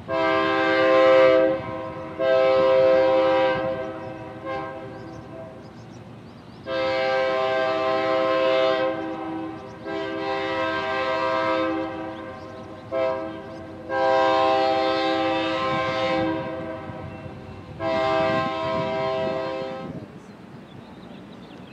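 Union Pacific 6655, a diesel locomotive, sounding its multi-chime air horn for a grade crossing. It gives a series of long blasts with a short one among them, in the long-long-short-long crossing pattern, over the low rumble of the passing train.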